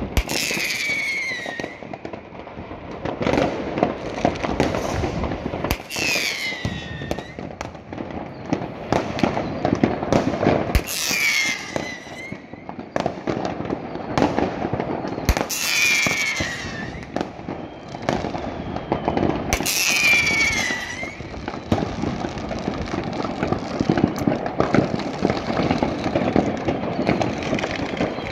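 New Year's fireworks going off across a town: a dense, continuous crackle of bangs and firecracker pops, with five high falling whistles spaced about five seconds apart.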